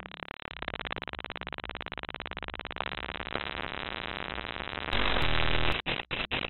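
Glitch-art audio made by databending the scanned image data of a fox painting: a harsh, fast-pulsing digital buzz, with a louder burst of harsh noise about five seconds in that then breaks into rapid stuttering chops.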